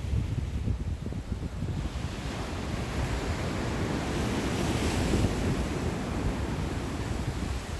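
Sea waves breaking on the shore: one wave's rush swells to a peak about halfway through and then eases back, over wind buffeting the microphone.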